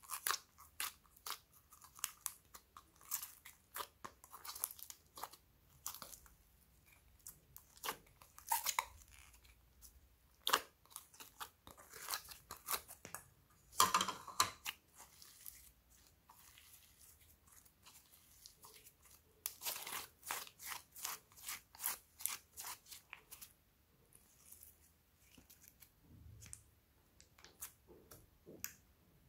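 Glossy slime being squished, poked and stretched by hand in a glass bowl, with clay worked into it, giving irregular runs of sticky crackles and clicks. The clicking gets denser about 14 seconds in and again from about 20 seconds.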